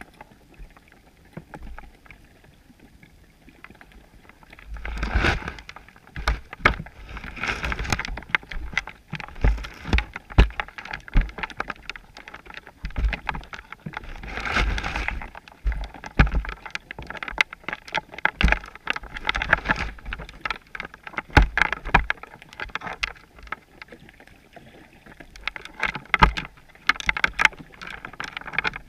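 Muffled underwater sound picked up through a GoPro's waterproof housing on a chum pot: irregular clicks and knocks, with swells of rushing water noise every several seconds. The first few seconds are quieter.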